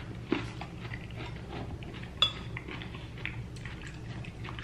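Cutlery tapping and scraping on a plate during eating, with many small clicks and one sharper, ringing clink about halfway through.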